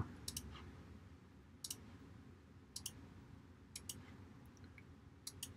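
Computer mouse button clicked several times, faint sharp clicks about a second apart with two in quick succession near the end, each click deleting an anchor point with the pen tool.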